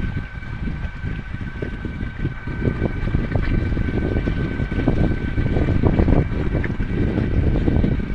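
Wind buffeting the microphone on a sailboat under way, an uneven low rumble that swells a little past the middle, with a faint steady high whine from the boat's electric drive motor.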